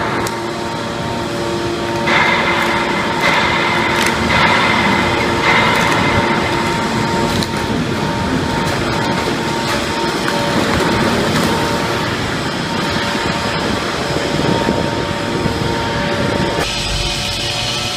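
400-ton hydraulic car baler running: its electric-motor pumps hum steadily while scrap metal crunches and creaks under the press. The sound changes abruptly about a second before the end.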